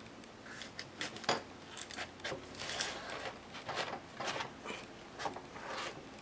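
A long kitchen knife sawing through the thick, knobbly rind of a whole raw jackfruit: a run of short, irregular scraping strokes.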